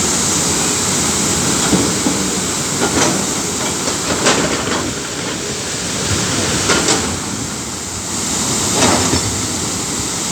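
A Tata Hitachi excavator at work: a steady engine noise with about six sharp metallic clanks and knocks spread through it.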